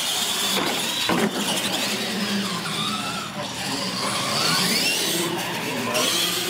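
Radio-controlled monster trucks racing flat out, their electric motors and gears whining high and gliding up and down in pitch as they speed up and ease off.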